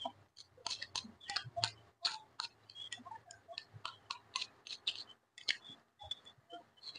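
Close-up eating sounds: wet chewing and mouth clicks of someone eating pinakbet vegetable stew, with wooden chopsticks tapping a glass bowl, in a quick, irregular run of sharp clicks.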